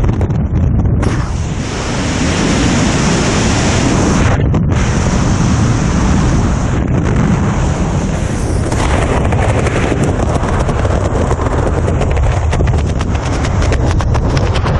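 Loud, steady wind rushing over a skydiver's helmet-camera microphone, with a brief dip about four seconds in; it cuts off suddenly at the end.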